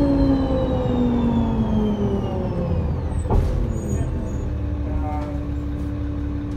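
Inside a 2005 New Flyer D40LF diesel bus (Cummins ISL engine, Voith D864.3E automatic transmission), the drivetrain whine falls steadily in pitch as the bus slows. A short sharp click comes about three seconds in, then the engine settles into a steady idle hum as the bus stands.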